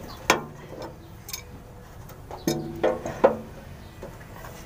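A metal wrench clinking against a truck's oil-pan drain plug as it is tightened: four sharp clinks, each ringing briefly. The first comes near the start and the other three in quick succession about two and a half seconds in.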